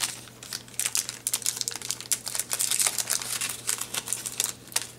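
A foil trading-card pack wrapper crinkling and hockey cards clicking and sliding against each other as they are handled, a quick run of small ticks and rustles.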